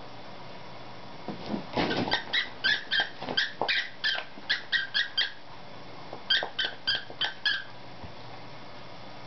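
Plush squeaky toy squeaking in quick short squeaks, about three a second, as a saluki chomps on it. A run of about a dozen squeaks, a pause of about a second, then a shorter run of about six, with a brief rustle of bedding just before the first.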